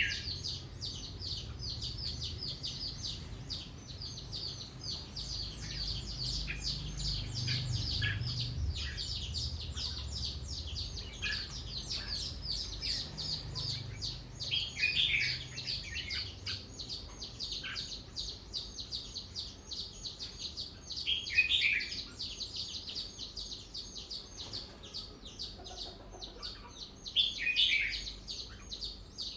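Red-whiskered bulbul singing short, loud warbled phrases, the loudest about halfway through, around two-thirds of the way and near the end, over a steady fast chatter of short high-pitched calls. A low rumble runs under the first half.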